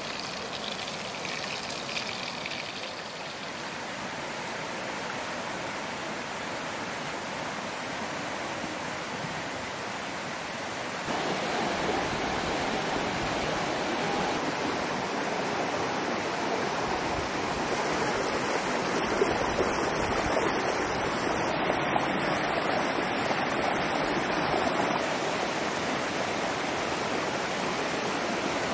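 River water rushing steadily, becoming abruptly louder about a third of the way through.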